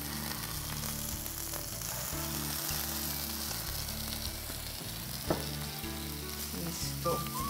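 Ginger sizzling in hot coconut oil in a frying pan, stirred as it sautés, with a steady sizzle and a couple of light clicks of the utensil on the pan.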